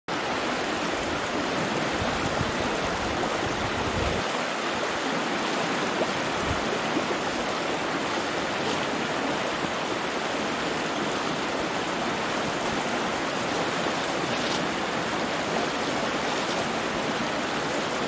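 Cannon River flowing over a shallow, rocky riffle: a steady, even rush of moving water.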